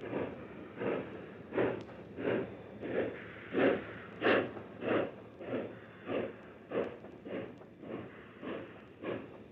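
Union Pacific Big Boy 4-8-8-4 articulated steam locomotive working slowly, its exhaust chuffing at a steady beat of about one and a half a second.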